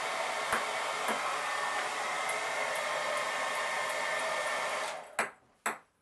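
Handheld hairdryer blowing steadily, then switched off about five seconds in, its rush of air dying away. A few light knocks follow in the quiet.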